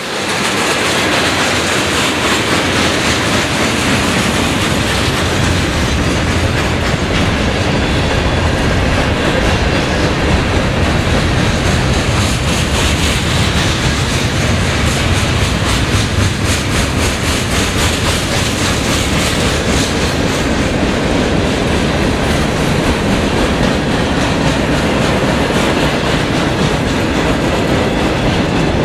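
Freight cars of a long CSX mixed freight train rolling past close by, with steady wheel-on-rail rumble and a clickety-clack of wheels over rail joints.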